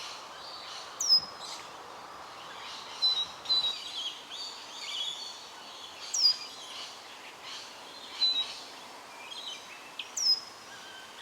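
Scarlet honeyeater calling: three loud, high, thin notes that sweep sharply downward, spaced a few seconds apart, with softer twittering chirps between them over a steady outdoor hiss.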